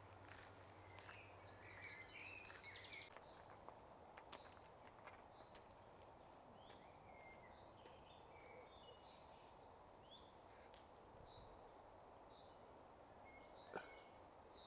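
Faint woodland birdsong: many short chirps and call notes from several birds over a quiet background hiss, with one sharp click near the end.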